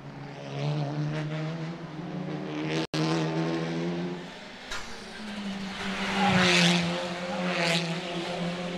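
Racing touring-car engines running hard as cars pass. The loudest pass swells up about six to seven seconds in, and the sound cuts out for an instant just before three seconds.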